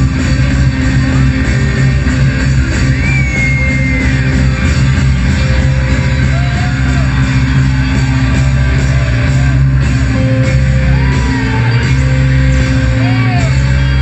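Live rock band playing loud and steady, with electric guitars, drums and keyboards, heard from among the audience.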